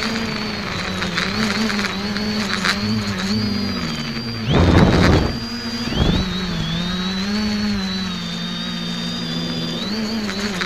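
X550AIOP quadcopter's electric motors and propellers whining, heard from the onboard camera; the pitch wavers up and down as the throttle changes. A brief loud rush of noise comes about halfway through, with a smaller one a second later.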